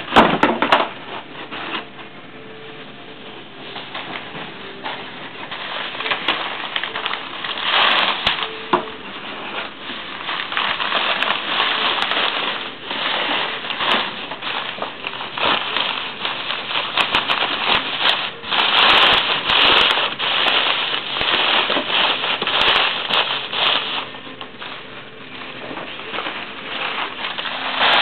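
Plastic packing wrap crinkling and rustling as it is handled and pulled out of a cardboard box, with cardboard scraping. A sharp knock comes at the start, and the crinkling grows louder in the middle stretch.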